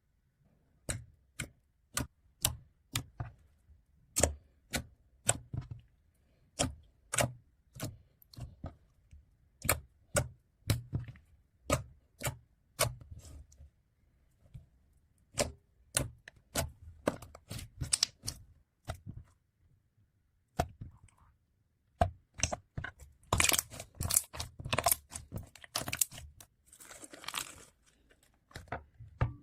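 Slime being pressed and poked by hand, giving sharp clicking pops about two a second. Near the end they turn into a denser run of crackling.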